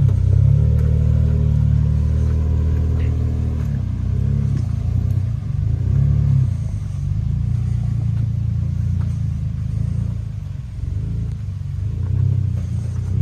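Off-road 4x4's engine pulling at low speed over a trail, its pitch rising and falling as the throttle is fed in and eased off.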